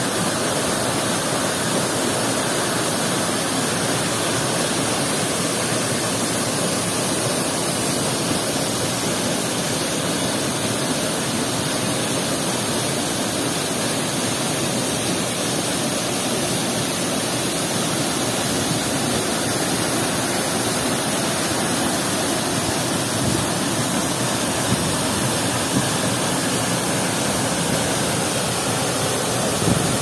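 A waterfall with two falls plunging into a rock pool, the water rushing steadily and evenly.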